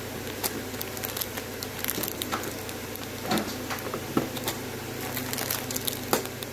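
Clear plastic bags and foil pouches of packaged earrings crinkling and rustling as they are picked up and dropped back into a pile, with irregular sharp crackles over a steady low hum.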